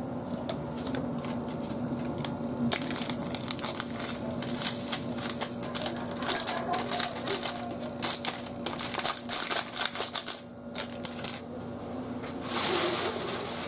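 Hands working dry bread ingredients in a stainless steel mixing bowl, making rapid light clicks, scraping and rustling, with a brief hiss near the end. A steady low hum runs underneath.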